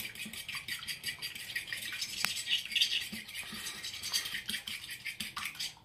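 A fork beating a raw egg in a glass bowl: fast, even strokes of the metal tines scraping and clicking against the glass, about five a second.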